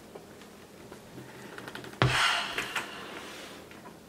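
A large, heavy boxed model locomotive set down on a table: one solid thud about two seconds in, then a short sliding rustle as the box settles, and a few light taps.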